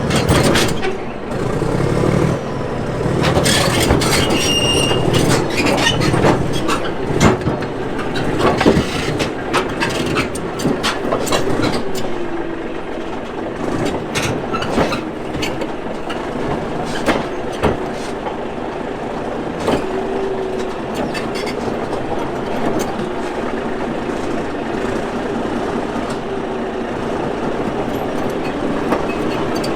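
Caterpillar D8H bulldozer crawling under power: its diesel engine running steadily while the steel tracks clank and now and then squeal, with the clanking busiest in the first ten seconds or so.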